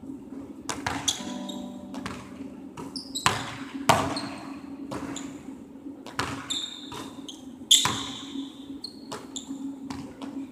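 A basketball bouncing on a hardwood gym floor and striking the rim and backboard during a shooting drill, as irregular echoing knocks, the loudest about 3 s, 4 s and 8 s in, with a few short sneaker squeaks.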